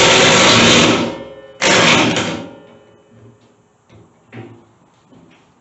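A 3/4-inch impact wrench hammering on a bush hog's 1 3/4-inch blade bolts, in two bursts: a loud one of about a second, then a shorter one a moment later. A few faint knocks follow.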